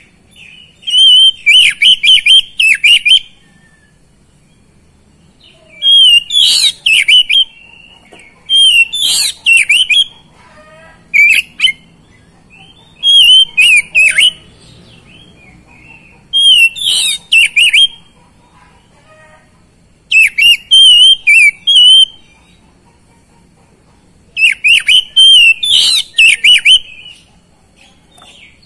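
Oriental magpie-robin singing in loud bursts of rapid, high chattering and whistled phrases, about seven bursts of a second or two each with short pauses between them.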